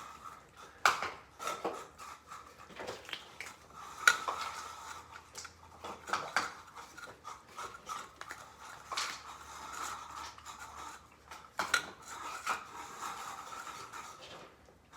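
Dishes and bowls clinking and clattering as they are handled and set down, with a string of sharp clinks and knocks, the loudest about a second in, at four seconds and near the end.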